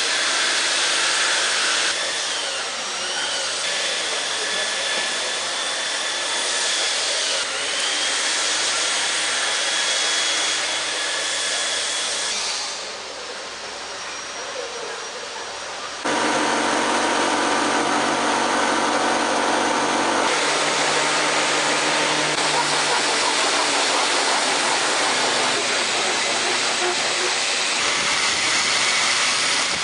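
Electric power tools running in a woodworking shop: a steady hissing whine that eases off for a few seconds about halfway, then a motor with a steady pitched hum for about four seconds, then hissing tool noise again.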